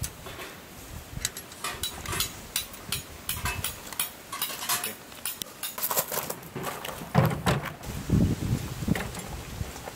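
Cookware and utensils clinking and knocking during cooking: a quick, irregular run of sharp clinks, with a few duller knocks in the second half.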